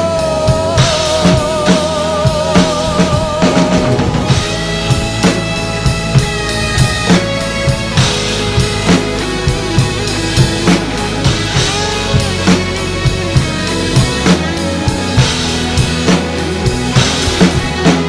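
Acoustic drum kit played in a steady beat, with bass drum, snare and cymbals; the strongest hits land about twice a second. It plays over a recorded band track whose melody carries on without vocals.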